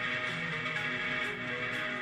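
Background music with held tones and faint plucked-string notes.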